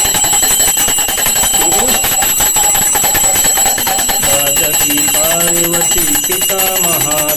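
Puja hand bell rung rapidly and without a break during aarti, with a bright metallic jangle. Voices begin singing the aarti about four seconds in.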